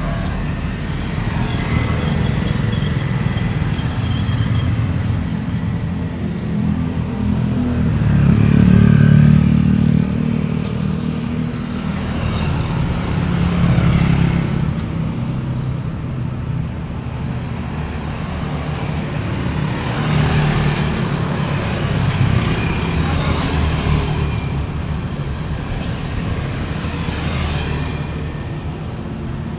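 Steady road traffic: motor vehicles passing one after another on a street. A constant engine and tyre rumble swells as each vehicle goes by, loudest about nine seconds in.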